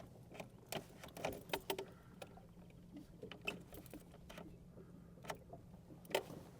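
Faint keys jangling and scattered clicks from a boat's ignition key being worked, with no engine cranking or running: the outboard motor won't start.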